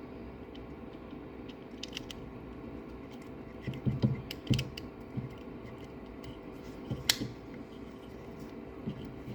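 Scattered clicks and knocks of small plastic and metal printer parts being handled and fitted, with a cluster about four seconds in and a sharp click about seven seconds in. Under them runs a steady hum with a faint constant whine.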